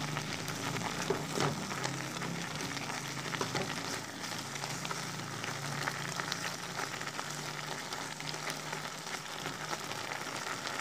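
Coconut-milk broth of a chicken liver and gizzard stew simmering in a wok: a steady bubbling sizzle with many small pops and crackles, over a faint low hum.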